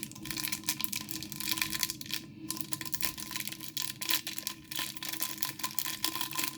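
Plastic packaging being handled, crinkling and crackling in quick irregular bursts, with a short pause about two seconds in.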